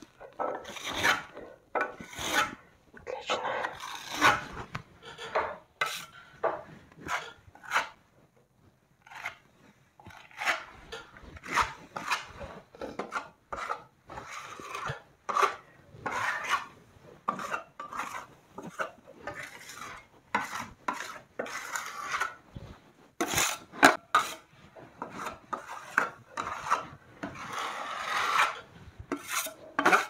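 Steel spatula scraping and smoothing gypsum plaster on a window reveal in repeated, irregular short strokes, with a pause of about two seconds some eight seconds in.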